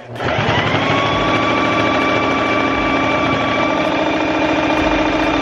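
Singer electric sewing machine running a long stitch at steady speed: the motor whirs up within the first moment, holds an even whir with the fast chatter of the needle, and winds down at the very end.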